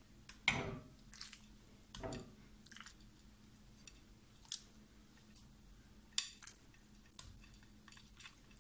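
Raw beef chunks being set down by hand into a cooking pot on top of pieces of beef fat: a series of soft, wet thuds and clicks, the loudest about half a second in.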